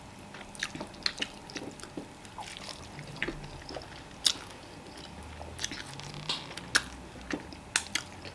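Close-miked chewing and wet mouth sounds of someone eating fufu and vegetable soup, with irregular sharp lip smacks and clicks.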